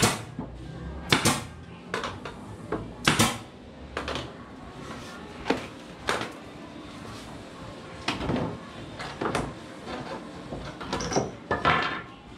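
Sharp knocks and hammer blows on a wooden plank frame, at irregular gaps of one to two seconds. The strongest strikes come in the first few seconds, and lighter knocks follow.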